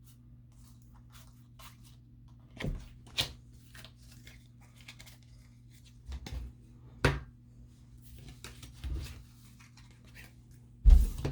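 Paper trading cards being handled and sorted by hand: scattered short rustles, slides and taps, with a louder thump near the end, over a steady low hum.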